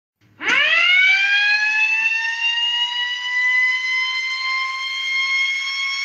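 Small motor-driven metal siren switched on about half a second in: its wail sweeps up quickly as the rotor spins up, then holds a steady high tone that keeps creeping slightly higher.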